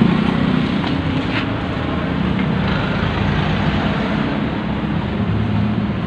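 Steady street traffic noise: a continuous rumble of passing vehicles, with nothing standing out above it.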